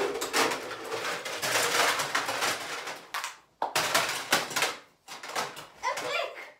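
Hurried rustling and clattering in three spells, broken by short gaps: cloth and plastic objects handled in a rush beside a bed.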